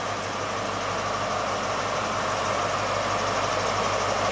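Diesel engine of an East Midlands Railway Class 43 HST power car running at low power as the train comes slowly into the platform, with a steady hum that grows gradually louder as it approaches.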